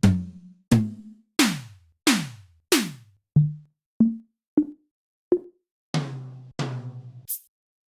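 Trap drum-kit samples played one at a time, about one every two-thirds of a second: deep 808 bass hits, several with a pitch that slides downward, then shorter pitched hits and a bright, crisp hit near the end.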